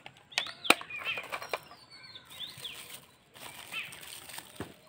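Wrapping paper and plastic gift packets rustling and crinkling as they are torn open by hand, with a sharp snap under a second in. Birds chirp in the background.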